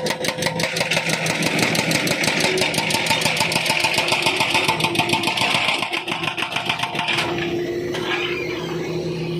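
Hydraulic breaker on a wheeled Volvo excavator hammering asphalt: a loud, rapid, even rattle of blows over the running engine. The hammering stops about seven seconds in, leaving the engine running.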